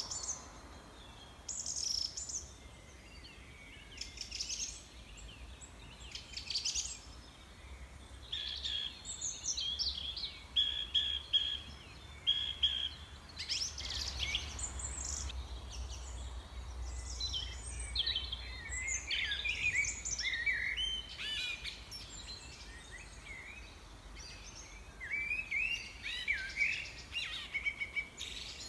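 Several songbirds singing and calling: short rising chirps every couple of seconds at first, then runs of repeated notes and busier overlapping chatter in the second half, over a faint low rumble.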